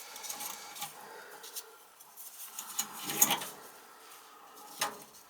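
Faint scattered clicks and light knocks of handling, with a sharper knock about three seconds in and another near the end.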